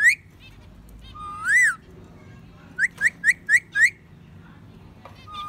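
A pet parrot whistling: a long note that rises and falls, then a run of five quick rising chirp-whistles, then another long rising-and-falling note near the end.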